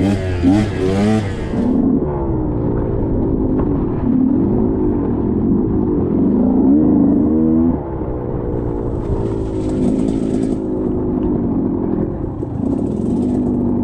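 Two-stroke single-cylinder engine of a KTM 125XC dirt bike being ridden, its pitch rising and falling as the throttle is opened and closed. Two short hissing bursts come in around nine and twelve seconds in.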